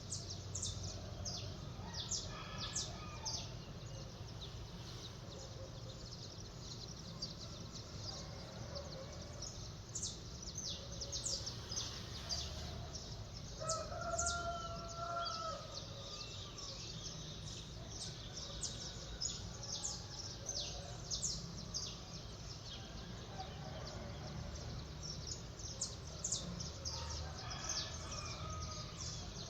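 A rooster crowing once, clearly, about halfway through, with fainter crows near the start and end, over many small birds chirping in quick short notes and a steady low hum of city background noise.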